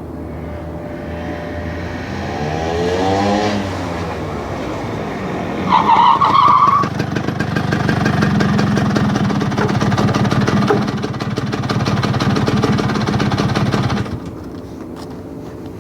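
1964 Vespa GL's freshly rebuilt two-stroke single-cylinder engine running, revved up and back down about two to three seconds in. From about seven seconds it runs harder and louder, then drops away near the end. A brief, loud, high-pitched sound comes about six seconds in.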